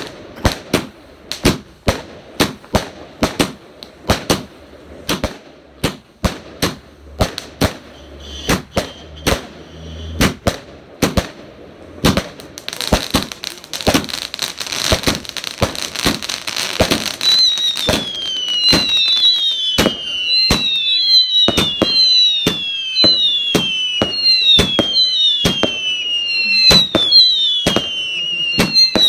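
Fireworks going off in a barrage: a string of sharp bangs about two a second, then a few seconds of dense crackling partway through. After that, repeated falling whistles, about one a second, sound over continuing bangs.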